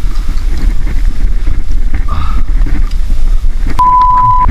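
Wind buffeting the microphone of a kayak-mounted action camera: a loud, steady low rumble. Near the end a steady electronic beep starts and holds for under a second.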